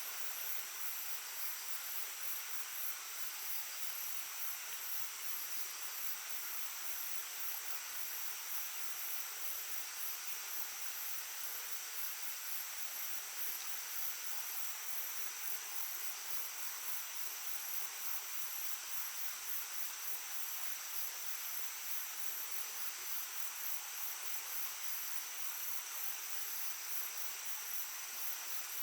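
Small stream babbling steadily, with a chorus of insects trilling over it: one steady high note and a rapid high pulsing.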